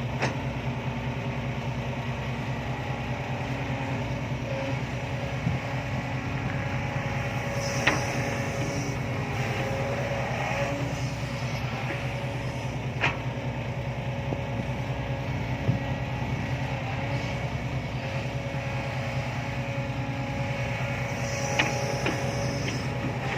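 Heavy diesel engine running steadily, with a few short sharp clicks.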